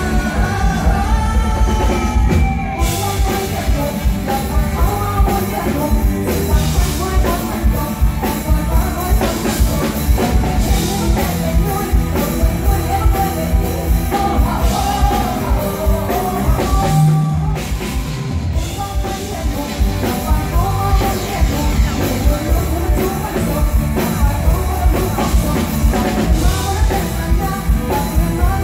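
Live Thai song: a woman singing into a handheld microphone, amplified through a stage PA, over a full band with a steady drum beat. The drums drop out briefly a little past the middle, then the beat comes back.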